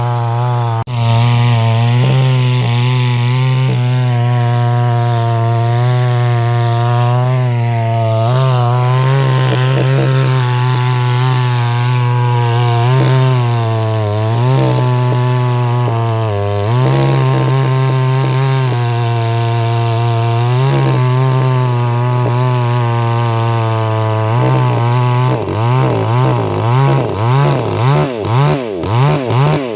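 Chainsaw running at high speed cutting through a tree, with two brief dips in engine speed midway. Near the end it is revved up and down rapidly, about twice a second.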